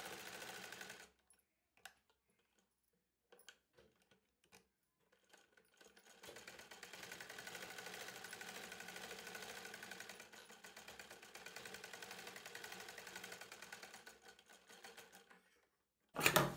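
Sewing machine stitching with a fast, even rhythm. It stops about a second in, leaving a few small clicks, then runs again for about nine seconds before stopping. A sudden loud handling knock comes just before the end.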